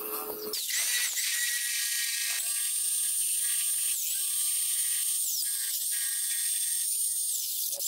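Electric jigsaw cutting through a wooden board, starting about half a second in: a steady high motor whine with a buzzing saw rasp, the pitch dipping briefly several times as the blade meets the wood.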